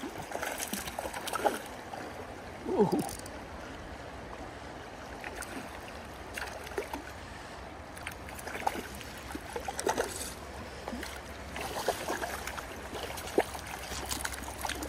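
River current rippling and gurgling right at the microphone, with small irregular splashes from a hooked rainbow trout at the surface. A brief falling squeak comes about three seconds in.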